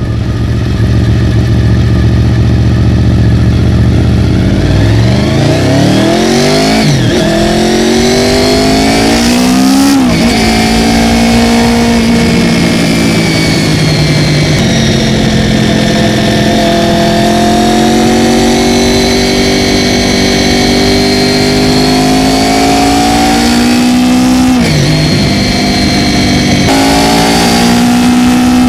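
Honda VFR800FI's V4 engine on a ride: it runs steadily at low revs for a few seconds, then revs up through the gears, its pitch rising and dropping sharply at each shift about seven and ten seconds in. After that it cruises at fairly steady revs with gentle rises and falls, and a brief dip in revs near the end.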